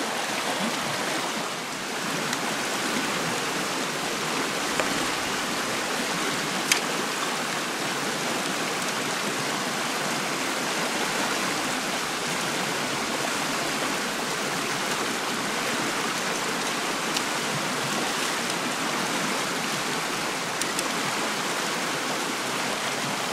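Shallow river rushing over stones in a steady, even hiss, with a few faint clicks.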